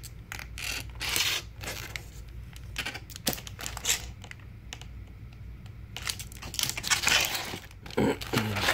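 Hard plastic CGC comic slabs in Mylar bags being handled in a cardboard box: irregular clicks and knocks as the cases tap and slide against each other, with bursts of plastic-bag crinkling.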